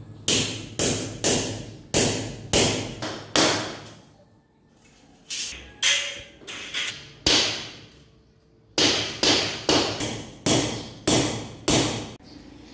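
Hammer blows on a metal ceiling wall angle, fastening it to a concrete wall: sharp strikes about two a second, in three runs with short pauses between.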